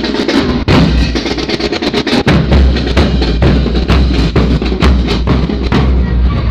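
Marching band drumline playing loudly: bass drums pounding under rapid drum hits and crashing marching cymbals.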